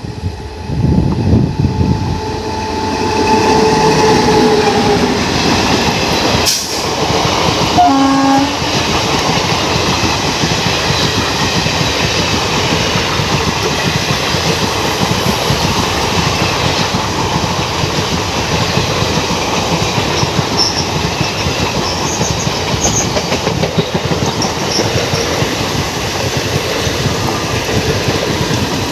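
WAP-7 electric locomotive sounding its horn for a few seconds as it approaches, the pitch sagging as it reaches the camera. An express passenger train then passes close by at speed: loud rushing and clickety-clack of the coach wheels over the rails.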